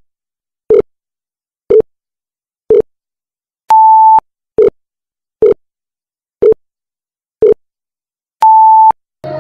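Countdown timer sound effect: short low beeps about once a second, with a longer, higher beep twice, about four seconds apart, and silence between.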